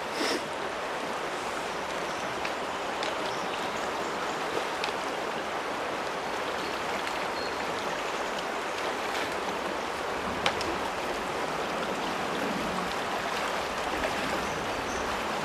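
Steady rush of a flowing trout stream, an even hiss of running water, with one small sharp click about ten and a half seconds in.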